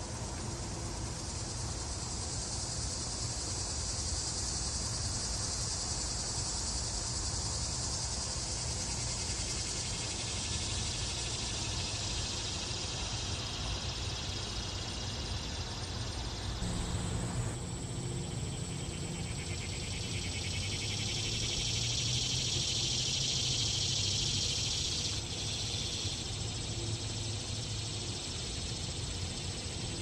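Annual cicadas singing: a steady high-pitched buzzing drone that grows louder about twenty seconds in and drops away suddenly a few seconds later, over a low background rumble.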